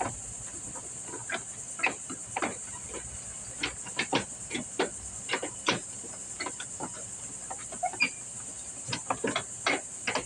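Short clicks and knocks of plastic and metal mower parts being handled and fitted into place, over a steady high chirring of crickets.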